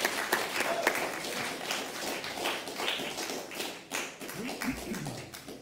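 Congregation clapping after a sung solo, the applause thinning out about four seconds in.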